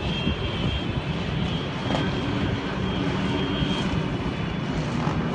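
Steady low outdoor rumble of distant city noise, as heard from high above the street.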